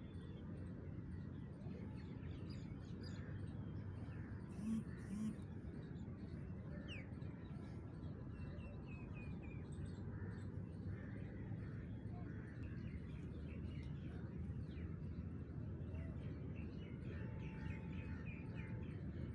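Birds chirping here and there over a steady low outdoor background rumble, with two short sharp knocks in quick succession about five seconds in.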